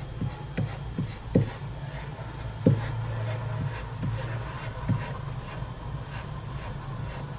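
Husky puppy's paws and claws scrabbling and tapping on a slick floor as it runs in place, with several dull thumps, the loudest about one and a half and two and a half seconds in, over a steady low hum.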